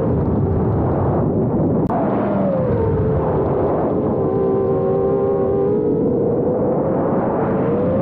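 5-inch FPV quadcopter's brushless motors and propellers whining, heard from on board the quad, over a rushing noise. The pitch drops about two seconds in, holds, and rises again near the end as the throttle changes, with one sharp click just before the drop.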